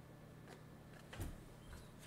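Quiet room tone with a few faint clicks and one soft tap about a second in, from a trading card being handled and set down.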